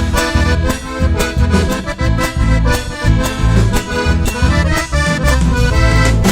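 Accordion-led Argentine folk dance music played live by a band, with a bass line and a steady percussive beat under the accordion melody.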